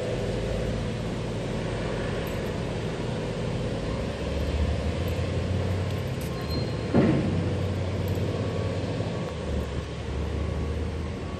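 A steady low mechanical hum, like an engine running, somewhat louder from about four seconds in. A brief louder sound stands out about seven seconds in.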